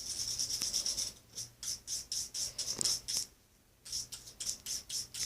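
Quick back-and-forth rubbing or scrubbing strokes, about five a second, in three runs broken by two short pauses.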